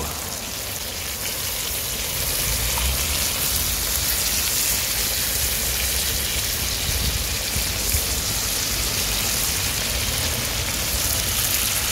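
Duck and onions sizzling in hot oil in a cast-iron kazan over a fire, a steady hiss.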